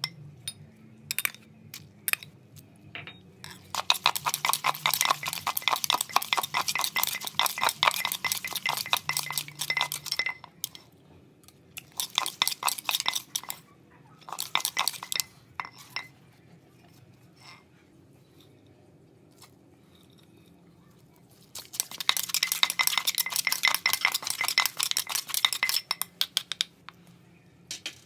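Cutlery clinking rapidly against a dish in several runs of a few seconds each, like food being mixed or scooped with a spoon and fork.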